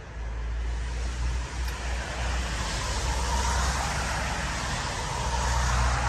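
A road vehicle going by: the noise of its tyres and engine swells steadily and is loudest near the end, over a constant low rumble.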